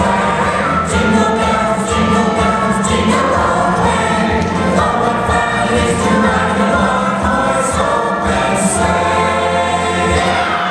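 Choir of voices singing over backing music in a stage-show musical number. The bass drops out near the end as the number closes.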